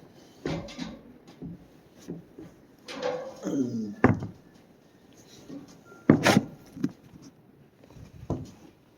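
Knocks and thumps on wood as someone climbs up into a barn hayloft, with a creak falling in pitch about three seconds in. Two sharp knocks, about four and six seconds in, are the loudest.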